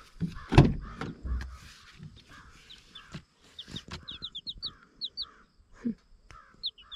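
Baby meat chicks peeping: short, high, downward-sliding cheeps, several a second from about the middle on, with soft rustling and a knock about half a second in.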